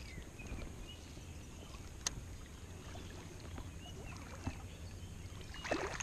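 Lake water sloshing and lapping close to the microphone, stirred by a wading angler landing a hooked bass. A sharp click comes about two seconds in and a soft knock a little past four seconds.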